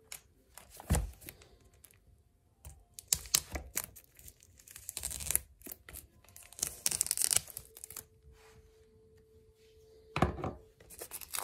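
Plastic shrink-wrap being torn and peeled off a small cardboard box, crinkling in separate bursts. A few sharp knocks come from the box being handled, the loudest about ten seconds in.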